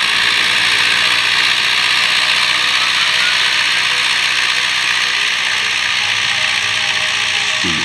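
Tractor engine running steadily as it pulls a field cultivator, with a continuous metallic rattle and hiss from the working implement.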